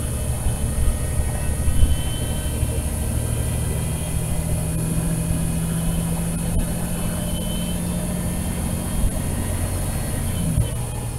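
Volvo B9TL double-decker bus running, a steady low rumble with a sustained low hum that sets in about three seconds in and stops shortly before the end.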